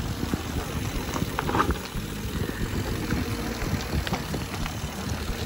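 Mountain bike rolling fast down a rough dirt trail: a steady low rumble of tyres on dirt and roots with a continuous rattle of small knocks from the bike.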